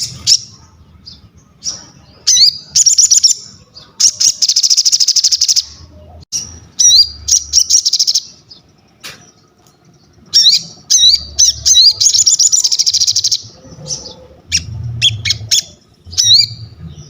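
Sogon songbird singing vigorously: quick high chirps with rising sweeps, broken by two long, fast rattling trills.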